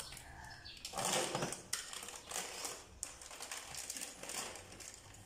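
Hands rummaging through small loose metal parts, with light clinks, clicks and rustling at irregular moments.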